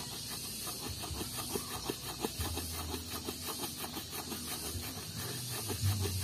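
Coconut meat being grated by rubbing a piece of coconut quickly back and forth on a rough stone slab: a rapid, steady rasping scrape, several strokes a second.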